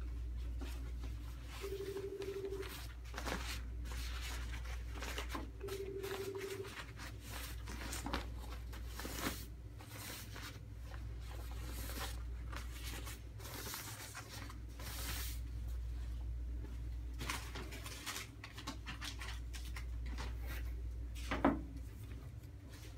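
Rustling and crinkling of a blue surgical wrap sheet and cloth gown being handled and folded into a pack, in short irregular strokes over a steady low hum, with one sharper crackle near the end.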